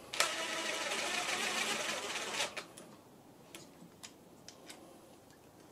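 Cordless drill-driver running for about two seconds on a camshaft bearing-cap bolt on the cylinder head of a 1.0 EcoBoost three-cylinder engine, followed by a few faint clicks of tools and parts.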